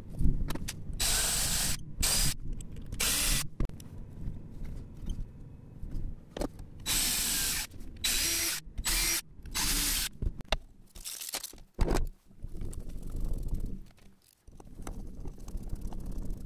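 Cordless drill/driver running in short bursts, driving screws into a plywood drawer box, in two groups of three or four runs.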